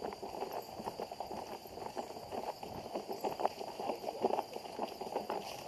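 Footsteps of people walking, a quick run of irregular knocks and taps, with a faint steady high tone underneath.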